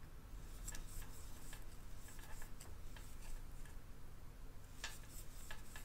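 Faint, irregular ticks and clicks of a crochet hook working lace yarn, stitch after stitch.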